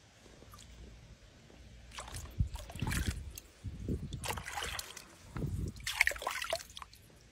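Water sloshing and splashing in a tub as a jaguar moves about in it, in a series of irregular bursts starting about two seconds in.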